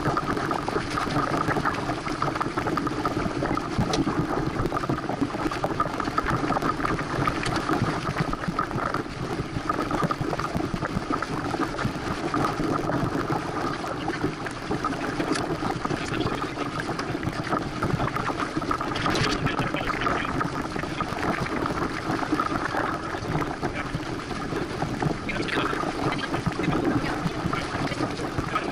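Water rushing and splashing steadily along the hull of a Santana 525 sailboat moving under sail.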